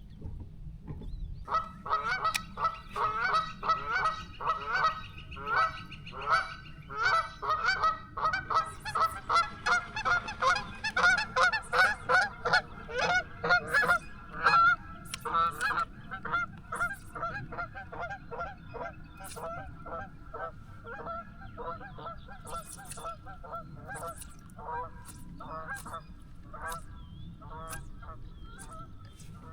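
Geese honking over and over, many short calls in quick succession. The calls are loudest and thickest through the first half, then thin out to fewer, fainter honks.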